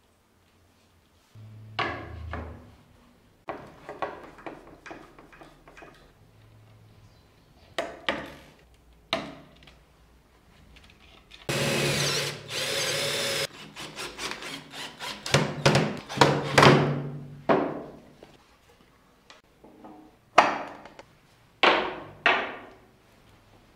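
Wooden parts being worked: scattered knocks and taps of wood on wood, and about halfway through a small power tool runs steadily for about two seconds, followed by a quick run of taps and a few sharp knocks near the end.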